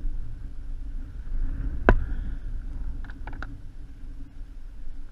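Wind rumbling on the microphone, with one sharp knock about two seconds in and three quick clicks about a second later as a fishing rod and conventional reel are handled.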